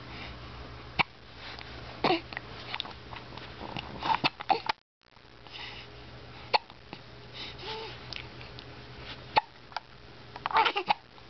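A baby hiccuping: several short, sharp hiccups at irregular intervals of a second to a few seconds, with a little fussing babble near the middle and the end.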